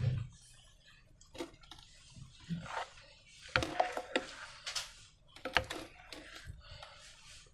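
Slime being squeezed and stretched by hand, giving irregular sticky squelches and crackles, busiest in the middle.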